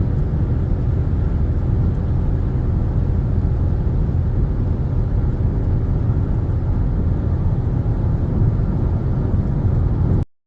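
Steady low rumble of a vehicle on the move, road and engine noise with no distinct events, cutting off suddenly near the end.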